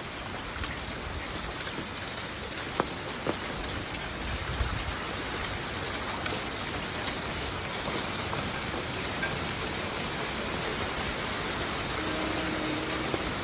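Rain mixed with hail falling steadily, an even hiss with a few sharp ticks about three and four and a half seconds in.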